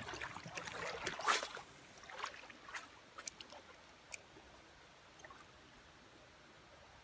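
Shallow river water splashing and sloshing around wading legs, loudest about a second in, followed by a few sharp clicks before it settles to a faint steady hiss.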